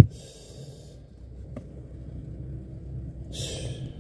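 A sharp knock at the start, then handling noise with a smaller click and two stretches of hiss over a low rumble, as objects are moved about right by the microphone.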